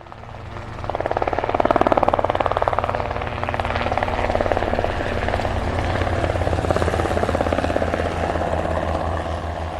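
Propeller of an RC model aircraft running steadily, a fast even beating buzz.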